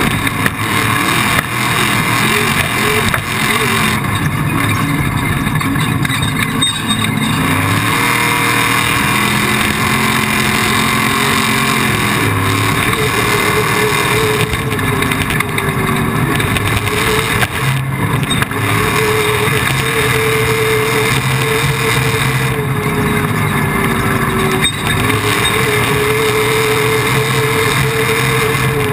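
Off-road race vehicle's engine running hard, its pitch rising and falling with the throttle, over a steady rushing noise.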